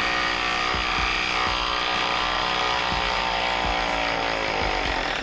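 Hilti cordless impact driver hammering steadily under heavy load as it backs a long screw out of a tough log. It stops near the end.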